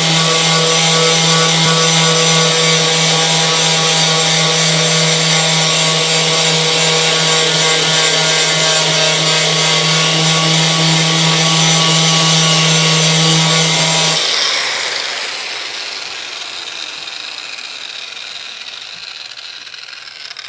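Electric angle grinder grinding paint and surface rust off a car body panel down to bare metal: a steady motor whine over the rasp of the wheel on the metal. About 14 seconds in it is switched off and the whine dies away slowly as the wheel spins down.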